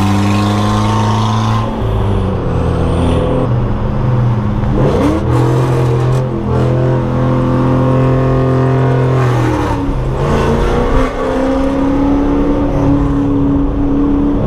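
Car engine running hard under way, its pitch mostly holding steady, with brief changes about 5 and 10 seconds in.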